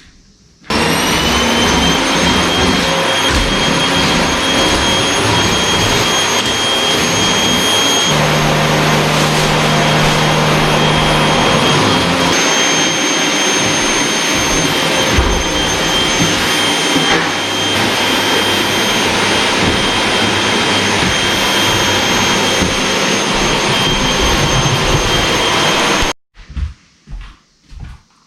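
Vacuum cleaner switched on, its motor spinning up to a steady high whine over a rushing noise and running steadily while it is used. It cuts off suddenly near the end, followed by a few light knocks.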